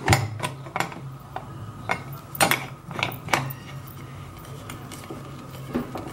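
Metal pressure cooker lid being set on the pot and its handle clamped shut: a string of metal clinks and knocks in the first few seconds, a few more near the end, over a low steady hum.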